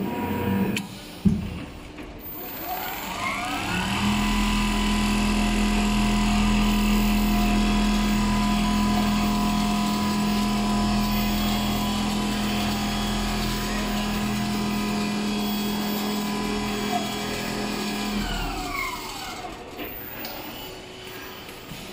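Richpeace large-format automatic sewing machine running: a sharp click, then its drive motors whine up in pitch, run steadily with a strong low hum for about fourteen seconds, and whine back down to a stop near the end.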